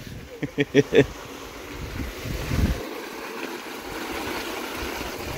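A short laugh, then the steady splash of a garden hose jet pouring into the water collecting in a new rubber pond liner.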